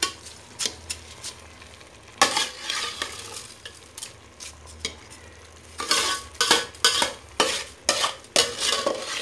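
Rice poured from a metal bowl into an aluminium pressure cooker with a soft rush, then a metal spoon scraping and knocking against the bowl in a quick run of strokes to get the last grains out.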